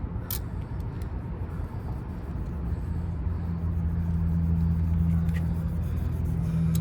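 A low steady hum of a motor or engine builds up about three seconds in and holds, over a low rumble.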